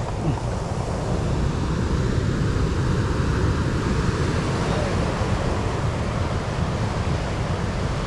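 Ocean surf washing on a stony beach, with wind buffeting the microphone as a steady low rumble.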